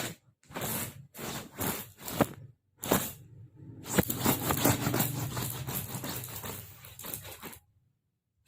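Rustling and scraping in several short bursts, then a longer stretch of about three and a half seconds, from a kitten being played with.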